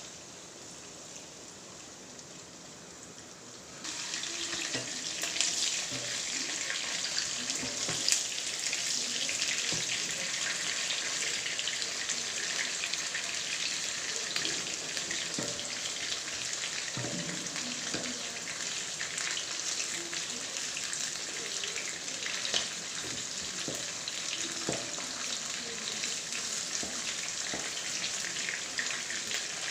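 Marinated chicken pieces frying in hot coconut oil: a steady sizzle full of small crackles and pops. It is quieter for the first four seconds or so, then suddenly becomes much louder and stays that way.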